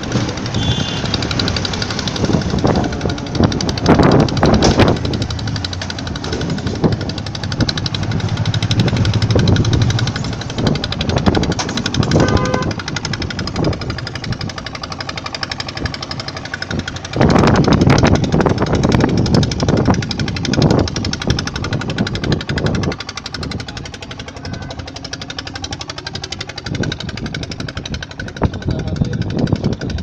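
Loud road-traffic noise on a highway bridge mixed with the rumble and crackle of wind on the phone's microphone, swelling louder a few seconds in and again past the middle, with brief tones near the start and about twelve seconds in.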